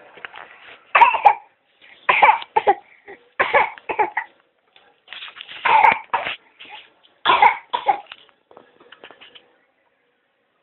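A small child fake-coughing: short, forced coughs, mostly in pairs, about five pairs spaced roughly a second and a half apart, trailing off near the end.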